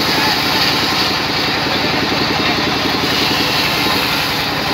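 Sawmill engine running steadily with a fast, even beat, driving a vertical band saw as a rain tree log is pushed through the blade.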